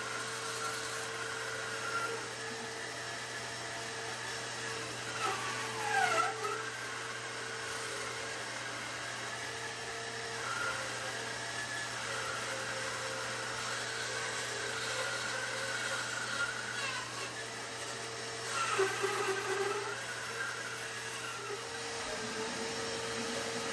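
Bandsaw running and slowly cutting through a thick, curved laminated wooden boat stem. A steady motor hum sits under a higher whine from the blade in the cut. That whine wavers, and twice, about six and nineteen seconds in, it gets louder and sweeps in pitch.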